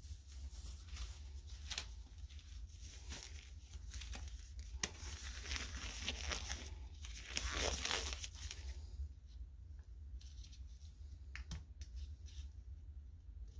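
Rustling and scraping of a gloved hand handling a plastic etchant jug, loudest in the middle, with a few sharp clicks and light knocks.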